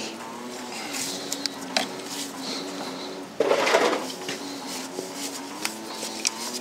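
Small metallic clinks and knocks of gloved hands working on parts in a tractor's engine bay, with a louder burst of scraping, rustling noise about halfway through.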